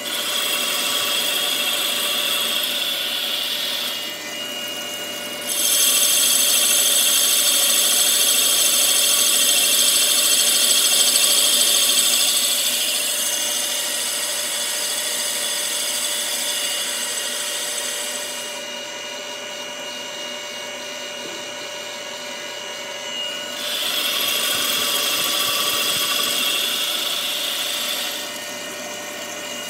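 CNC lathe turning the bore of a cast-aluminium Holset HE351VE turbo compressor housing: the spindle runs steadily with a high whine while the tool cuts. The cutting noise grows louder and quieter as the cuts come and go, loudest from about five to twelve seconds in and quietest a little past the middle.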